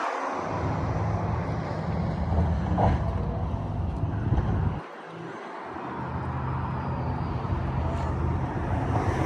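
A steady low engine hum, with a short drop about five seconds in.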